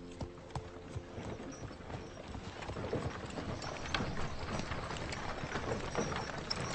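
A horse's hooves clop on a leaf-strewn dirt track, getting louder as it approaches. A held music chord fades out in the first second.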